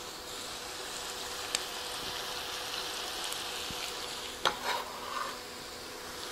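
Ground beef and diced onion sizzling steadily as they brown in a skillet, with a sharp click about a second and a half in and a couple of knocks around four and a half seconds in.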